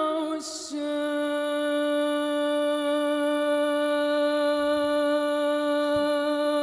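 A girl's voice singing unaccompanied in Arabic: a short wavering, ornamented phrase, a quick breath about half a second in, then one long note held steady for about six seconds.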